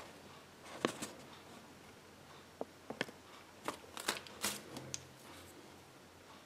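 Faint rustling of a small folded paper leaflet from a Kinder Surprise egg being unfolded and laid on a tray, with several light clicks and taps scattered through the first few seconds.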